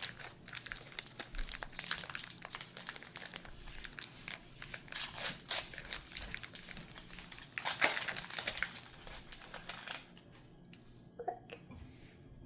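Wrapping being crumpled and torn off a toy by hand, a dense crinkling with louder rips about five and eight seconds in, then it stops near the end, leaving only a few small clicks.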